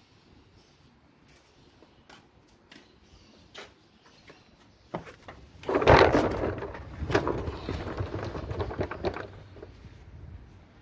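A few light clicks, then a loud knock about six seconds in, followed by about three seconds of clattering and knocking, like tools and metal parts being handled.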